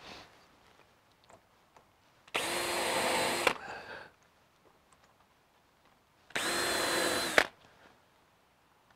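Cordless drill run twice into a wooden stair handrail, each run a steady whine lasting about a second, about four seconds apart.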